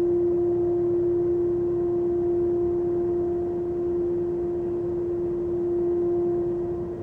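An unexplained steady droning hum heard in the night sky, one held low pitch with fainter overtones above it, sounding like a drone or a large duct-cleaning vacuum. It sags a little in loudness at the very end.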